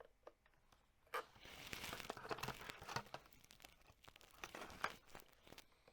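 Faint, irregular rustling and crackling with scattered small clicks, starting about a second in.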